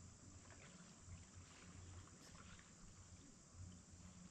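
Near silence: faint outdoor ambience, a low uneven rumble with a few scattered faint ticks and a steady faint hiss.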